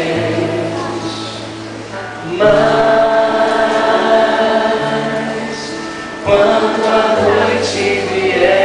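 Live music of sustained, choir-like chords over a held low bass note, swelling to a new chord about two and a half seconds in and again about six seconds in.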